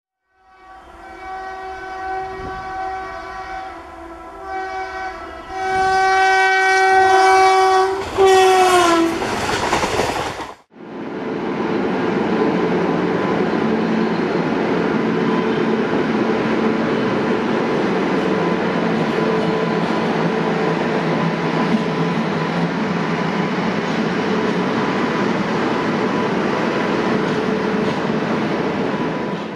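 Indian Railways WAP-7 electric locomotive's horn sounding in four blasts of a steady chord, the last one sagging in pitch as it dies away. Then, after a sudden cut, the steady rumble and rattle of the train's wheels and LHB coaches running past, with a faint steady whine.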